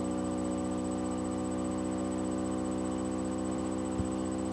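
Steady electrical hum and buzz, one unchanging tone with many overtones, from a malfunctioning microphone; a faint tap about four seconds in.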